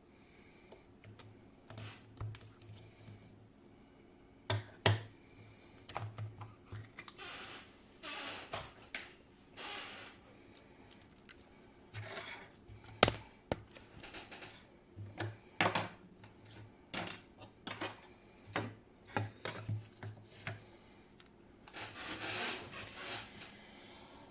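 Small metallic clicks, taps and scraping from a picked KABA Penta lock cylinder being worked apart by hand and with tools to get its core out, with two sharper clicks and a few stretches of rubbing or sliding metal.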